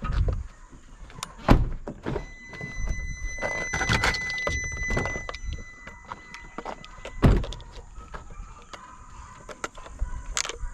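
Pickup truck door being handled and shut, with a loud thump about a second and a half in and another loud thump around seven seconds in, amid knocks and rustling. A steady high tone sounds for a few seconds in between.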